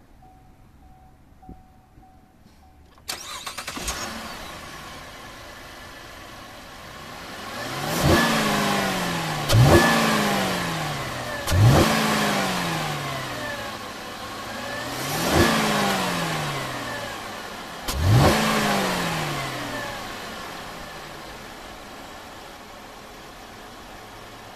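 2019 Cadillac XTS's 3.6-litre direct-injection V6 starting about three seconds in, flaring briefly and settling to idle. It is then revved five times in short blips, each falling back to idle.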